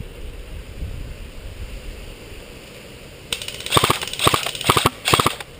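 Airsoft rifle firing several short bursts in quick succession, starting about three seconds in after a low rumble. It is likely a hit, since "Got him" follows right after.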